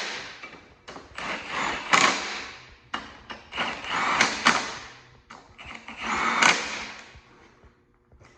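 Ratchet wrench clicking rapidly as bolts are run in on a 5.3 LS V8 engine, in four rasping bursts with short pauses between.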